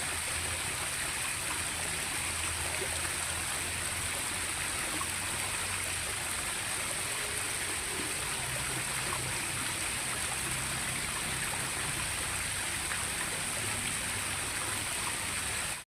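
Steady outdoor ambience of flowing stream water, with a continuous high-pitched hiss over it; it cuts off suddenly near the end.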